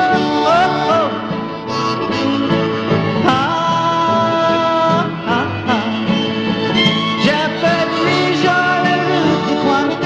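Film theme music with held notes, several of which slide up into pitch, over a repeating bass line.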